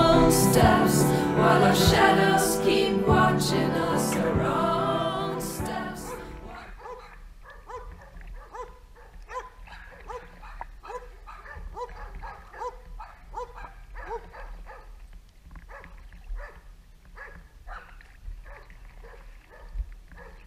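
Background song with singing fades out about six seconds in. After that a dog barks over and over, about twice a second, fainter than the music.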